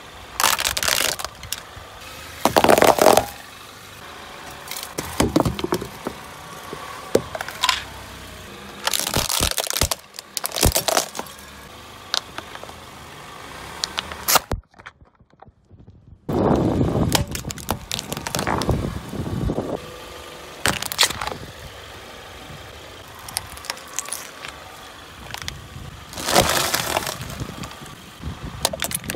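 Car tyre rolling over and crushing objects on asphalt, including a plastic watercolour paint box, plastic milk bottles and a bag of crunchy filled cereal pillows. A run of separate loud cracks and crunches comes every few seconds, with the car's engine running low underneath.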